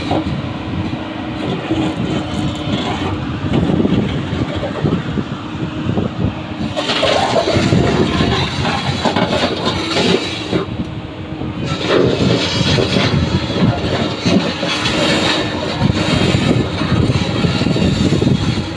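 JCB crawler excavator's diesel engine running under load while its steel tracks clank, rattle and squeal as it crawls down off a low-bed trailer.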